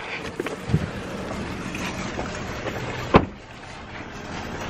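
Wind and handling noise on a handheld camera's microphone outdoors, with a few light knocks and one sharp thump about three seconds in.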